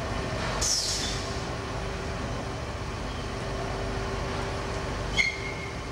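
Crane engine running steadily with a low hum, with a brief hiss about half a second in and a short high squeak about five seconds in.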